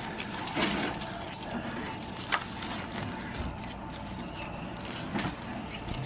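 Aluminium foil food wrapper crinkling and rustling as it is unfolded by hand, with a few sharper crackles.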